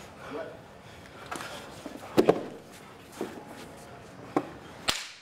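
Grapplers scuffling on a rubber mat: a few scattered sharp slaps and thumps of bodies and hands, with a close pair about two seconds in.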